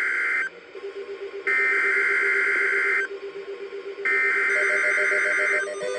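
Emergency Alert System SAME header: harsh, buzzing two-tone digital data bursts that open a special marine warning alert. The first burst ends about half a second in, and two more follow, each about one and a half seconds long with a gap of about a second between them.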